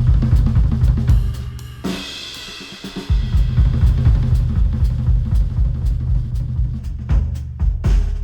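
Music led by a busy drum kit, with kick, snare and cymbals, played back through headphones and picked up by microphones. The heavy drums drop out about two seconds in and come back about a second later.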